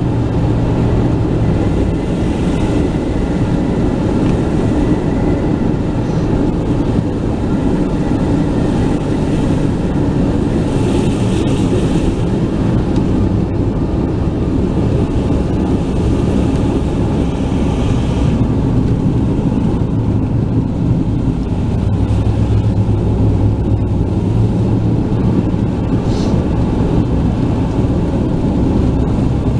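Steady road and engine noise of a car heard from inside the cabin while driving on a wet road, a constant low rumble with tyre hiss rising briefly now and then.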